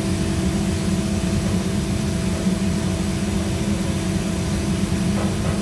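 Steady low machinery drone with a constant hum in it, typical of a ship's engines and deck machinery.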